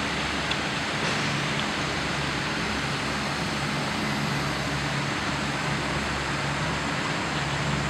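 Steady mechanical hum with low droning tones under an even rushing noise, as of a large fan or compressor running without let-up.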